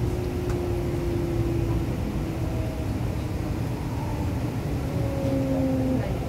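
Electric multiple-unit train heard from inside the passenger car: steady low running rumble with thin motor whines that fall slightly in pitch as the train slows, the last of them stopping about six seconds in.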